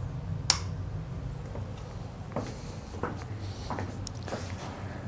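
Scattered light knocks, clicks and a brief rustle of someone handling things and moving about, over a steady low hum.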